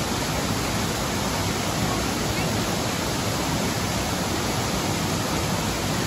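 Waterfall cascading over rock into a plunge pool: a steady, even rush of falling water.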